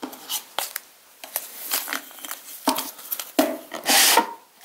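Alhambra board game's cardboard building tiles being handled over and into a cloth drawstring bag: a run of light clicks and taps, with a longer rustle near the end.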